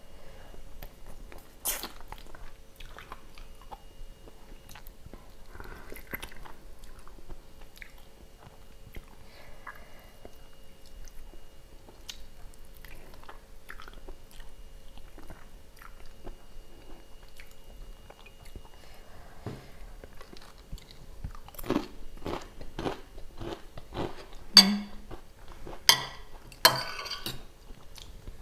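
Close-up chewing and gnawing of meat and cartilage off a beef bone, with small crunches. In the last several seconds comes a run of sharper, louder clicks and clinks: a metal spoon against a plate.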